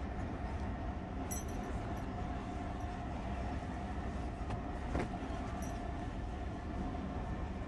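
Steady low rumble of indoor background noise with a faint steady hum. There is a short click a little over a second in and a soft knock about five seconds in.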